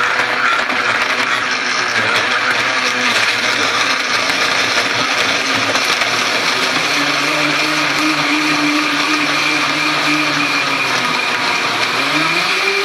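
Countertop blender running hard, blending chunks of honeydew and cantaloupe with ice into a smooth shake. About seven seconds in the motor settles into a steady whine as the mix smooths out, and near the end the motor's pitch rises.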